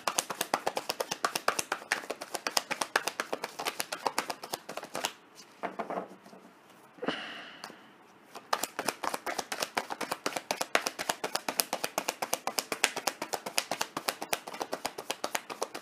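A tarot deck being shuffled by hand: a fast run of light card flicks and riffles that pauses for a few seconds about halfway, then starts again.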